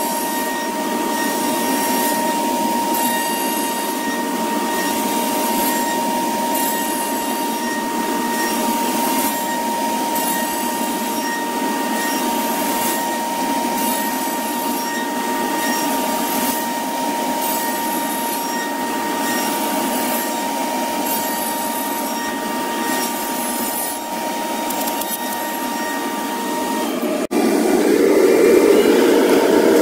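CNC router spindle cutting a wooden block: a steady high whine over the noise of the cut, with a faint pulse about once a second. About 27 s in, the sound cuts off abruptly and a louder, deeper steady machine noise takes over.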